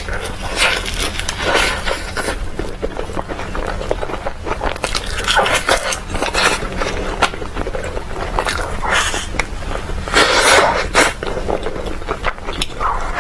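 Close-miked chewing and crunching of crisp sweets, in repeated crackly bites with a few louder crunches, the loudest a little past the middle.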